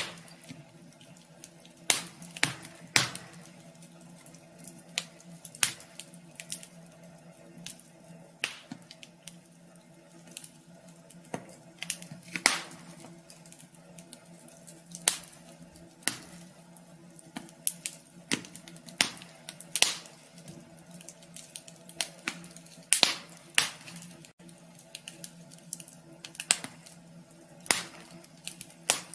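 Wood fire crackling in a wood-burning stove: irregular sharp snaps and pops, a few of them loud, over a faint steady hum.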